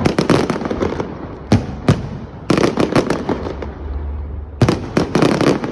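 Finale fireworks display: aerial shells bursting in sharp, loud bangs, each followed by clusters of crackling. There is a dense volley at the start, two single bangs, a crackling flurry in the middle, and another volley of bangs and crackles near the end.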